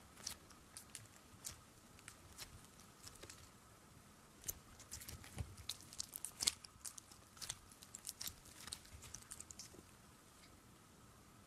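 Clear slime packed with water beads being squeezed and stretched by hand, giving faint, irregular sticky crackles and popping clicks, thickest in the middle.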